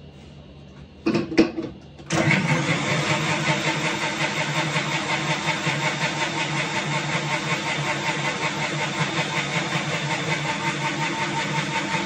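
A few knocks from the steel jar on the base of an electric mixer grinder. About two seconds in, the motor starts and runs steadily, grinding raw chicken liver with water.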